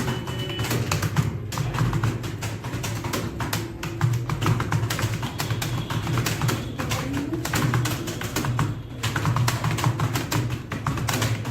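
Fast typing on a computer keyboard: a dense, uneven run of key clicks, several a second, over a steady low hum.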